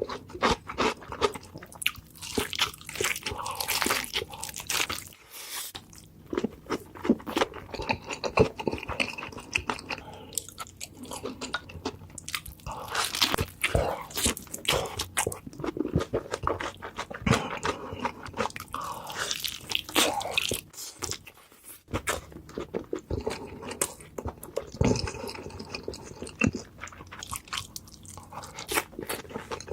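Close-miked eating: crunchy bites and wet chewing of a burger, a dense, irregular crackle of crisp clicks with short pauses between mouthfuls.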